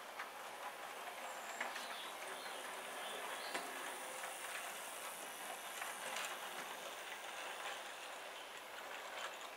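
Bachmann 64xx pannier tank model locomotive and coach in OO gauge running past on the layout: a steady rolling noise of small wheels on model track, with scattered faint clicks.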